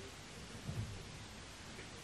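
Quiet room tone with a faint hiss and one soft low knock a little under a second in.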